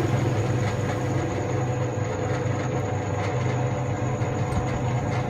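Steady low machine hum with a faint higher tone above it, even throughout.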